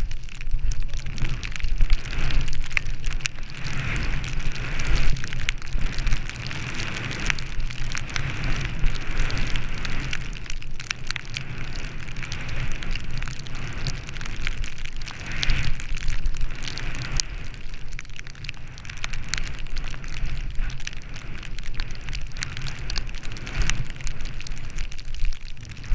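Skis hissing and swishing through deep powder snow on a downhill run, the hiss swelling and easing with each turn, over a steady low rumble and scattered ticks of snow spray.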